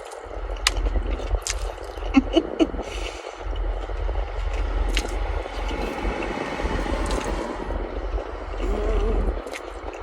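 Close-up eating sounds: crunchy bites and chewing of a cinnamon-sugar-coated, cornmeal-battered fried Korean corn dog, heard as scattered sharp crunches over a steady low rumble.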